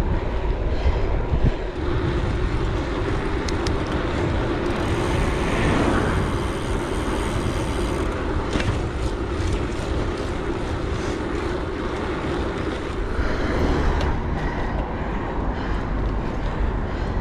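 Wind rushing over the microphone of a camera on a moving gravel bike, mixed with road noise from riding on tarmac; a steady, unbroken rumble.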